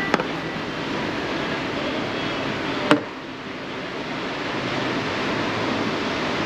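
Steady rushing background noise of a café, with a small click at the start and one sharp knock about three seconds in as the shaker, cup and milk jug are handled on the stainless steel counter.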